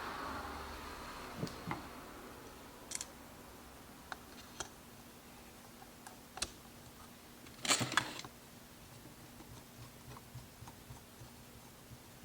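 Sparse light clicks and taps of small tools and parts being handled, with a brief cluster of louder clatter about eight seconds in. A hiss fades out in the first second or so, and a faint steady hum sits underneath the later part.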